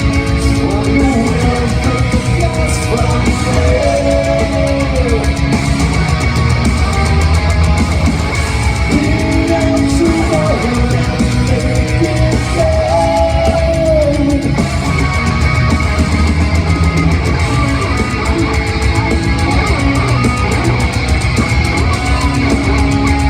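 Heavy metal band playing live: distorted electric guitars and drums, loud and dense, with a melodic line that bends in pitch a few times.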